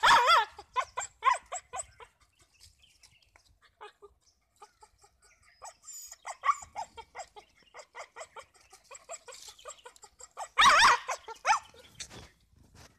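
A dog and a goat calling as they play. There is a loud cry with a wavering, quavering pitch at the start and a louder pair of such cries about eleven seconds in, with a string of short yelps and calls between.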